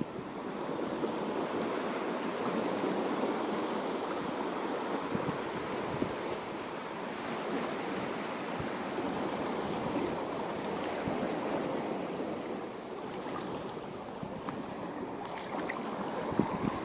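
Sea water washing steadily, a rushing wash of small waves that swells and eases slightly, with a few faint clicks.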